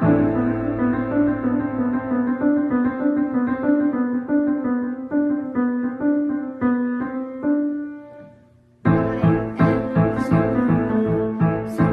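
Piano being played by hand, a run of ringing notes that thins out and dies away about eight seconds in. A louder passage with a regular beat then starts suddenly about a second later.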